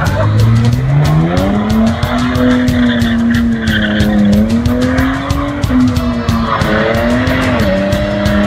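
A car engine revving hard through a burnout: its pitch climbs over the first two seconds, then holds high and wavers as the throttle is worked, over the hiss and squeal of spinning tyres.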